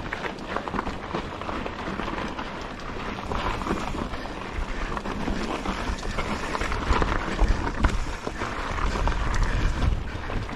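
Mountain bike being ridden over a rocky, gravelly trail: tyres crunching and the bike clattering with frequent knocks, with wind rumbling on the microphone.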